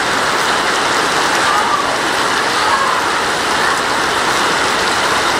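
Heavy downpour of rain pelting the road and tiled pavement, a steady dense hiss.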